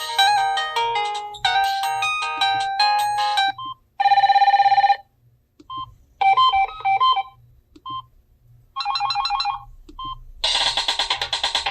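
Samsung SGH-T309 flip phone playing its built-in polyphonic ringtones through its small speaker. A quick many-note melody stops about three and a half seconds in, followed by a loud steady buzzy tone, short single beeps and a few brief tone patterns. A busier ringtone with a drum beat starts near the end.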